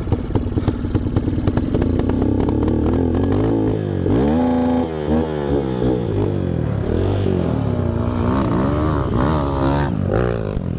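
Dirt bike engine revving up and down again and again, held high for about a second near the middle, with a fast clatter over the first couple of seconds.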